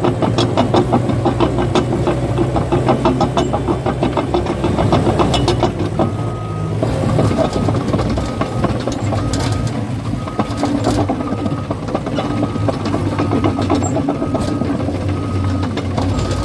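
Caterpillar bulldozer's diesel engine running under load with its steel tracks clattering rapidly. About six seconds in the clatter eases and a backup alarm starts beeping about once a second as the dozer reverses.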